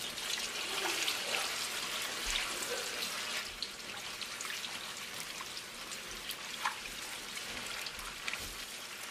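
Tomato paste frying in plenty of hot oil in a large aluminium pot while being stirred with a wooden spoon: a steady sizzle full of small crackles and pops, a little louder in the first few seconds.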